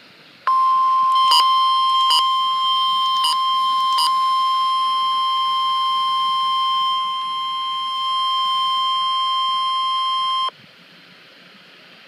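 NOAA Weather Radio 1050 Hz warning alarm tone, played through a Midland weather radio's small speaker: one steady, unbroken tone held for about ten seconds before it cuts off suddenly, which announces a new warning. A few short clicks sound over it in the first few seconds.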